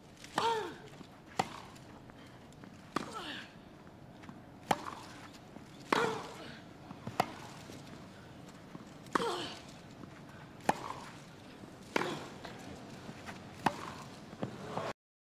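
Tennis rally on a grass court: racket strings striking the ball about every one and a half seconds. On alternate shots a player gives a short grunt that falls in pitch.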